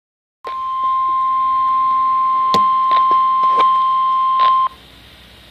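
NOAA Weather Radio warning alarm tone, a single steady 1050 Hz tone, played through a weather radio's speaker. It sounds for about four seconds, with a few sharp clicks of interference, then cuts off suddenly to low radio hiss.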